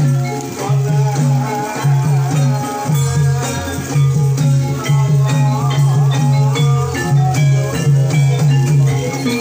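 Javanese gamelan-style music accompanying a kuda kepang (ebeg) dance: mallet-struck keyed instruments play a repeating melody over a steady, pulsing low beat.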